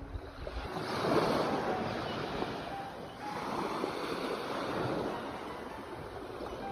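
Sea waves surging in twice, the first swell about a second in and the second a little after three seconds, each easing off into a steady wash.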